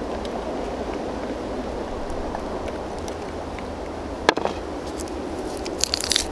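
A fork stirring a wet mix in a glass bowl over steady background noise, with one sharp clink about four seconds in as the fork is set against the glass. Near the end, a quick cluster of clicks and crackles as a plastic barbecue sauce bottle is picked up and its cap flipped open.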